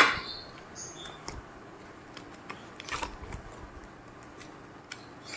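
A sharp knock right at the start, like a small spice jar set down on a hard tabletop, followed by a few faint, scattered clicks and taps of kitchen containers being handled.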